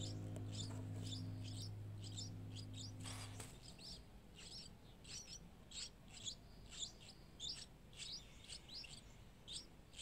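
Streak-eared bulbul nestlings' begging calls: a steady series of short, high chirps, about three a second. A held music chord sounds under them and stops a few seconds in.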